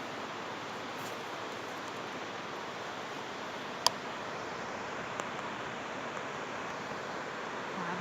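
Steady, even rushing noise with no engine note in it, and a single sharp click about four seconds in.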